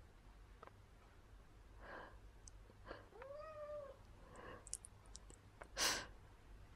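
Birman cat giving a short meow that rises then falls in pitch, with softer breathy sounds before and after it. Near the end comes a brief, louder rush of noise.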